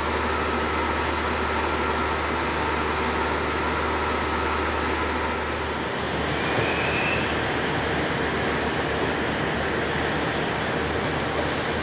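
JNR KiHa 47 diesel railcars idling at a platform: a steady low diesel rumble with a constant hum. A few faint steady whining tones stop about halfway through, and a short higher tone sounds soon after.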